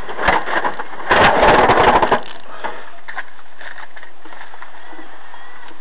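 Sharp knocks, then a second of loud rattling and clattering inside a truck cab in the moments after a collision, settling into a steady drone of cab and road noise.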